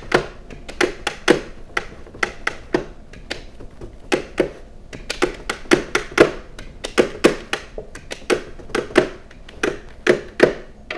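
Sharp plastic taps and clicks, irregular at two or three a second, as plastic fondant smoothers are pressed and worked against a fondant-covered cake.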